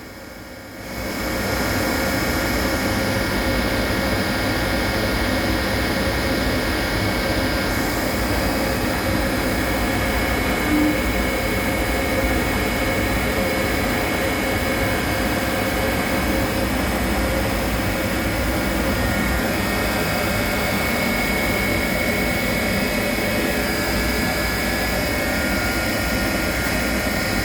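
CNC machine running steadily, a continuous mechanical noise with several steady whining tones over it, rising in at the start.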